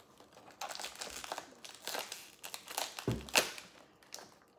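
Crinkly toy packaging being handled and opened: irregular crackling rustles, with a soft thump about three seconds in followed by the loudest crinkle.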